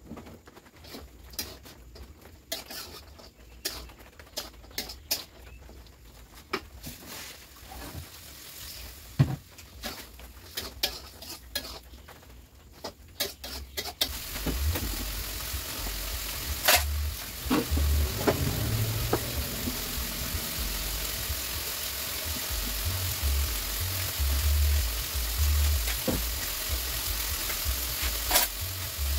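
Spatula stirring in a wok for nasi goreng, with many short clinks and scrapes. About halfway through, a steady sizzle of frying starts abruptly and runs on, with an occasional clink of the spatula.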